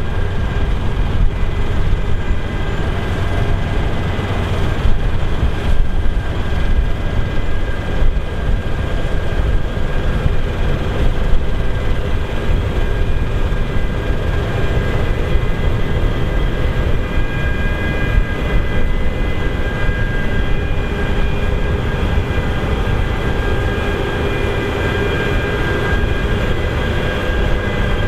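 Claas Lexion 8900 combine harvester working in barley: a steady, heavy engine drone with several steady whines from its threshing and header machinery above it.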